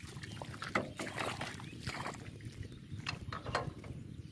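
Irregular metallic clicks and rattles from the hand crank of a power tiller's diesel engine being worked to start it, over a faint low rumble.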